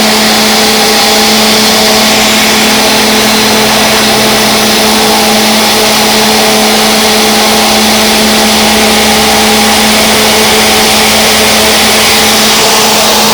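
Industrial rotary screw air compressor running steadily: a constant hum with a strong hiss of air over it, and a deeper rumble that builds about halfway through.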